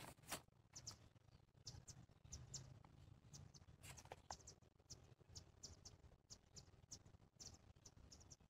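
Near silence: quiet outdoor ambience with faint, scattered short high-pitched ticks or chirps.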